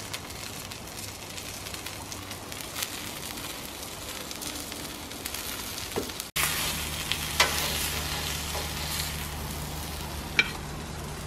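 Egg-and-flour-coated flathead fillets sizzling steadily on a hot barbecue hotplate. After a brief dropout about halfway in, a low steady hum sits under the sizzle, and there is a short click near the end.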